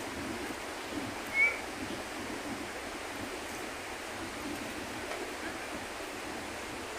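Steady outdoor rushing noise, with one short high chirp about a second and a half in.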